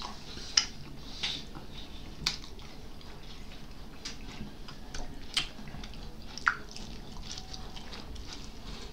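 Close-miked mouth sounds of eating with the hands: wet chewing with scattered sharp lip smacks and clicks, about one every second or two.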